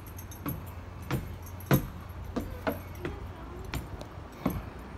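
Footsteps climbing a ship's wooden stairway and then walking onto the wooden deck: a string of knocks roughly every half second to second, the loudest a little under two seconds in.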